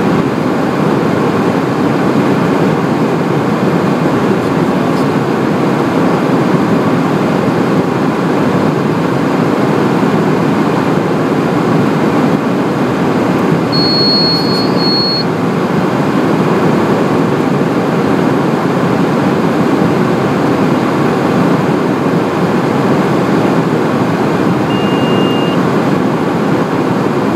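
Steady interior noise of a Cessna Citation Encore business jet descending on approach: a constant rush of airflow and engine noise heard inside the aircraft. Two short high beeps sound about halfway through, and one lower beep sounds near the end.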